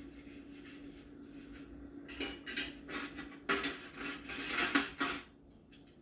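Dishes being washed by hand: a run of scrapes and clinks of dishware handled at the sink, starting about two seconds in and stopping near the end, over a steady low hum.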